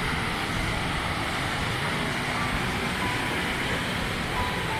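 Steady road noise of a moving car, an even rush with no breaks, with a few faint short steady tones on top.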